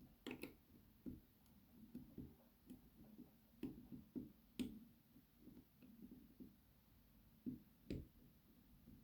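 Faint, scattered clicks and light taps of a hook pick and tension wrench working the pins of an ABUS 83/55 six-pin padlock, with a few sharper clicks about half a second in, near the middle and near the end.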